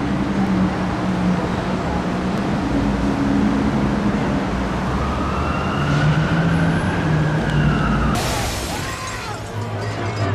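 A TV drama soundtrack: music over a dense traffic-like rumble, with a long gliding tone in the middle, then a sudden crash of shattering window glass about eight seconds in.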